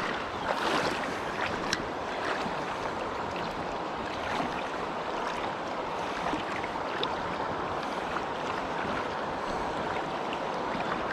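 Steady rush and splash of water, with a few louder splashes in the first couple of seconds.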